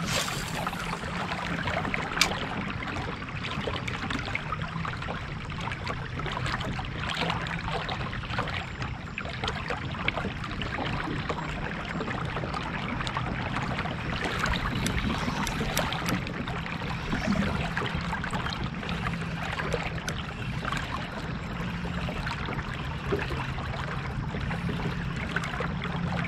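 Steady rushing of river water around a fishing kayak, with a low steady hum underneath and one sharp click about two seconds in.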